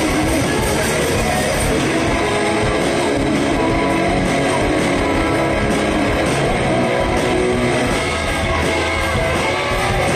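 A rock band playing live, with electric guitars to the fore, loud and steady.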